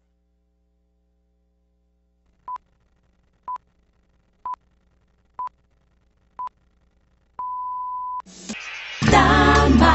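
Broadcast countdown pips: five short beeps at one steady pitch a second apart, then a longer sixth beep, the time-signal pattern that counts down to going on air. Music starts about nine seconds in.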